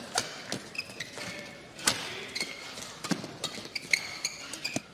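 Badminton rally: about five sharp smacks of rackets striking the shuttlecock, the loudest about two seconds in, with short high squeaks of shoes on the court between them.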